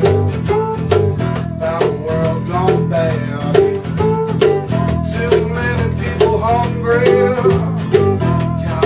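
Blues played live on a metal-bodied resonator guitar: picked notes that glide and bend in pitch over steady low notes underneath.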